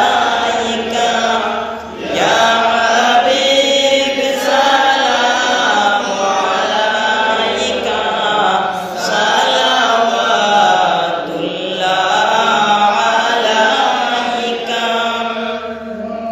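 A man's voice chanting a Milad Sharif, an Islamic devotional recitation in praise of the Prophet, in long melodic held lines, with a short break for breath about two seconds in.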